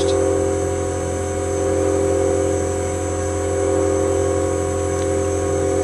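Spectral MM milling machine running steadily, its 10 mm three-flute end mill cutting a slot in copper at a slow feed: a constant motor hum with several steady tones.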